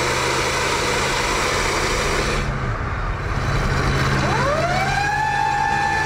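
A 1966 Dodge Coronet police car's V8 engine runs as it drives. About four seconds in, its siren winds up in a smooth rising sweep and settles into a steady high wail.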